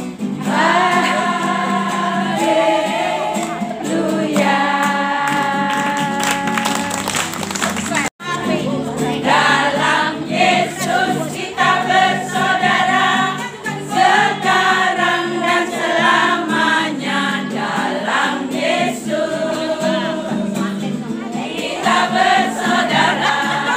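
A group of women singing together, with a momentary cut-out about eight seconds in before the singing resumes.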